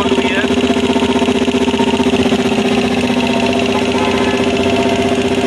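5 HP Elgi twin-cylinder reciprocating air compressor, driven by an electric motor, running steadily under load with a fast, even pulsing, pumping up its tank toward the 10 kg cut-out.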